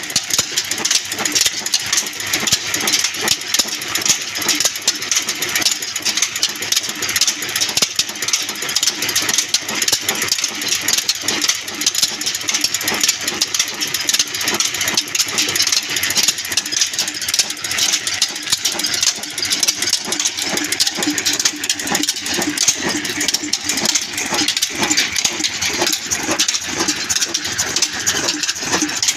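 Old black stationary diesel engine running steadily, its large flywheels and flat drive belt turning, with a rapid, even clatter.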